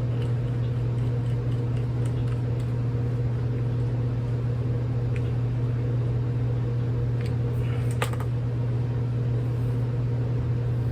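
Steady low mechanical hum, with a few faint clicks and light metal taps from a screwdriver and small parts as a grip screw is driven back into a revolver's frame; one sharper click comes about eight seconds in.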